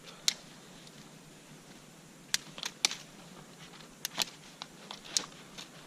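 Small twigs being snapped off branches by hand for kindling: a series of sharp, irregularly spaced snaps, most of them in the middle of the stretch.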